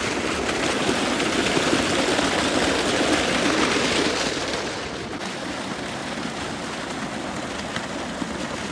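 Water gushing from a pipe outlet and splashing onto the ground: a steady rushing and splashing, a little quieter from about halfway.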